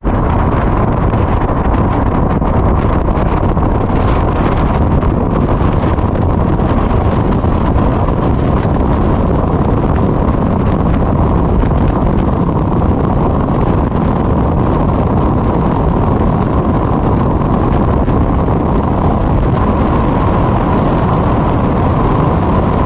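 Yamaha R15 motorcycle ridden at road speed, heard through a helmet-mounted camera: steady, loud wind rush on the microphone with the engine running under it.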